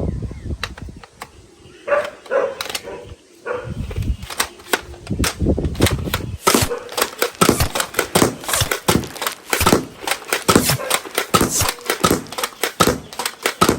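Toy guns firing: a few scattered sounds, then from about four seconds in a rapid run of sharp shots and clicks, several a second.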